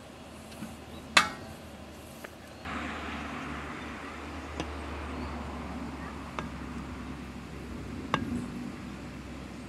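A metal spoon working in a metal cooking pot: one sharp clink with a brief ring about a second in, then a few lighter taps as cooked rice is scooped out onto a plate, over a steady hiss.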